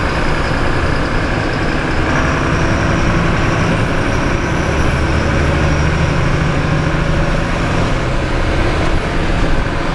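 Diesel engine of a Mercedes-Benz city bus running under way, heard from the driver's seat with road noise; the low engine note grows stronger for a few seconds midway, then eases.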